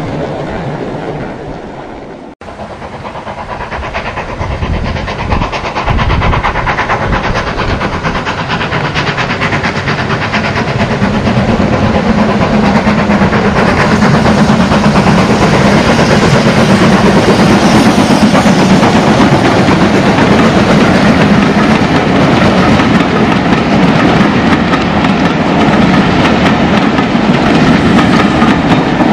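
A miniature garden-railway train running along its track, wheels clattering over the rails. The sound grows steadily louder as the train gathers speed, then runs on evenly with a low steady drone underneath.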